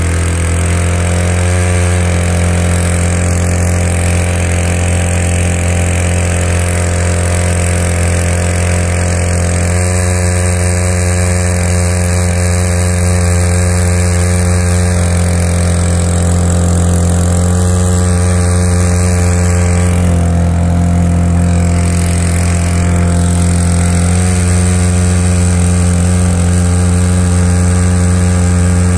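Small 53cc, 2.5 hp two-stroke outboard motor on a kayak running steadily under throttle, driving the boat along: a loud, even engine drone.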